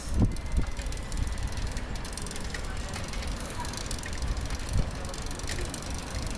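Ride noise from a bicycle-mounted camera: a steady low rumble of the tyres and wind on the microphone, with frequent small rattles and knocks as the bike rolls over the street surface.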